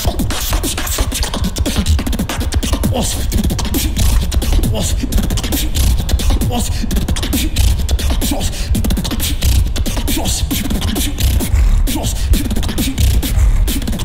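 Competitive beatboxing into a handheld microphone: a continuous, fast rhythm of sharp clicks and hi-hat-like hisses over heavy bass.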